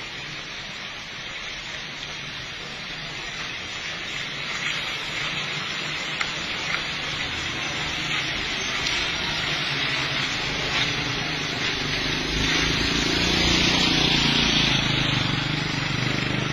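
Steady hiss of tyres on a wet asphalt road, growing louder as vehicles drive past close by, with a low engine rumble swelling in the last few seconds.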